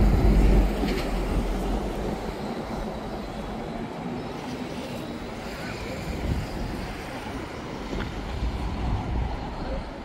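Low rumble of a passing vehicle, loudest in the first second, then steady urban traffic noise.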